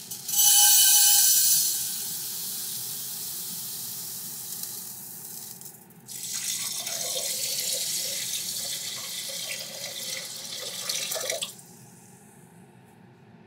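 Water poured in a thin stream into a STAUB enameled cast-iron pot, to cook rice. It comes in two pours: the first begins just after the start and runs about five and a half seconds, and the second starts about six seconds in and stops suddenly about eleven and a half seconds in.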